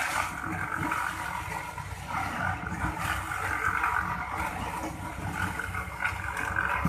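Heavy-equipment diesel engine running under load, its pitch and level rising and falling unevenly, with a higher whine over the low engine note.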